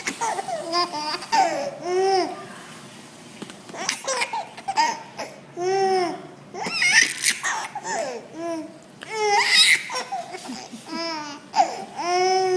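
Baby laughing hard in repeated fits, between a silly vocal noise that his mother makes again and again.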